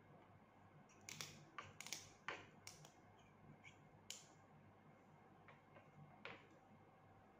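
Faint, sharp metallic clicks and ticks of small orthodontic pliers working a thin 0.5 mm wire: a quick cluster between one and three seconds in, then a few scattered single clicks, over a low steady room hum.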